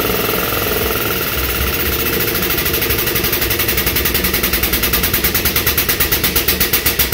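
A compressed-air tool running hard with a loud air hiss. In the second half it turns into a rapid, even pulsing, then stops.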